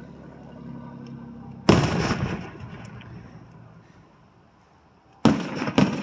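Aerial firework shells bursting. One loud boom about a second and a half in dies away over a second or two, then two more sharp bangs come close together near the end.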